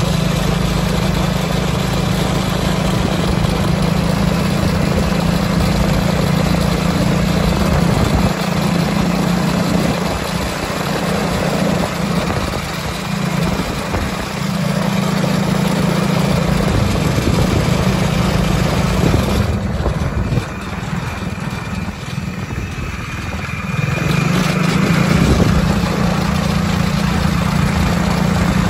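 Duromax 208 cc single-cylinder four-stroke engine of a swapped mini side-by-side go-kart running at steady high revs at wide-open throttle while driving. About two-thirds of the way through the throttle eases off for a few seconds, then the engine pulls back up to full revs.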